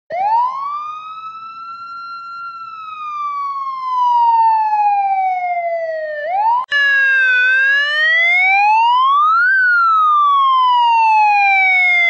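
American police car siren wailing in slow glides of pitch. It first rises quickly, holds, then falls slowly. Just past halfway it cuts to a second wail that dips, climbs steadily to a peak and falls slowly again.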